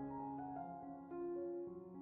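Background piano music: a slow run of sustained notes that change every half second or so.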